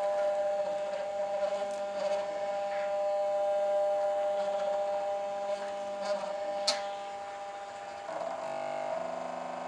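NEMA 17 stepper motor driving a 3D-printed 80:1 compound planetary gearbox, a steady whine of several pitches, with a sharp click about six and a half seconds in and a change in the tone about eight seconds in. The gears are meshing without skipping.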